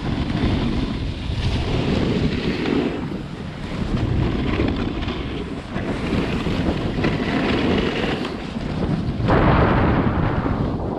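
Wind buffeting the microphone of a camera carried down a ski slope on a snowboard run, a steady low rushing that swells and eases, growing louder and brighter for a moment about nine seconds in.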